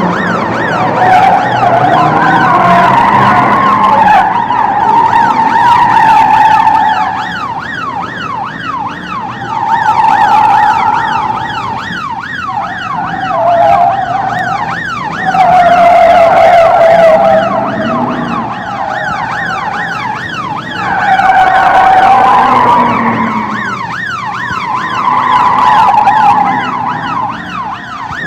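Police car sirens sounding together: one wails slowly up and down while another sweeps rapidly in a fast yelp, over the noise of car engines. The sirens grow loud and fade away several times.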